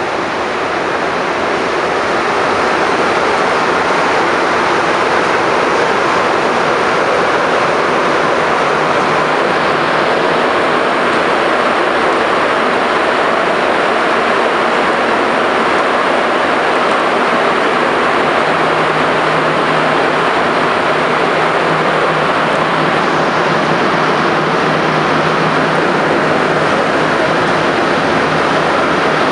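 Interior noise of a rubber-tyred MR-73 Montreal metro car running through the tunnel: a loud, steady rush and rumble that builds over the first few seconds as the train gathers speed, with a faint low hum joining about two-thirds of the way through.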